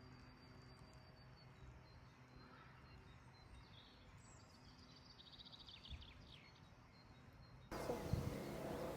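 Quiet outdoor ambience with faint, distant birds chirping, including a short rapid trill midway. Near the end a louder, even rushing noise sets in abruptly.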